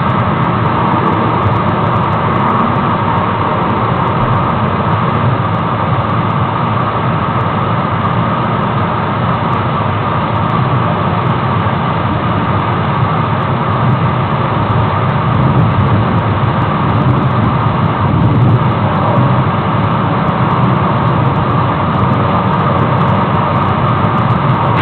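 Steady roar of rushing water from a waterfall.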